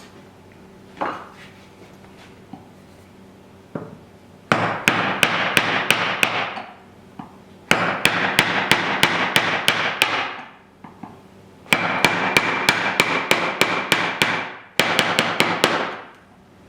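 Hand tool working wood in four bursts of quick, regular strokes, each burst a rasping noise with sharp clicks about three or four times a second.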